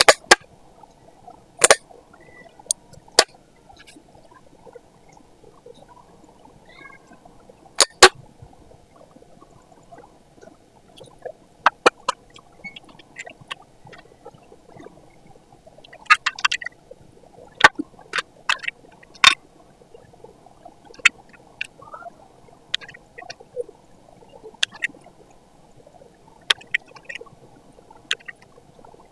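Sharp, separate clicks and snaps from handling craft tools and plastic: a handheld single-hole paper punch clicking through cardstock at the start, then a clear plastic storage case being opened and its contents handled. A faint steady hum sits underneath.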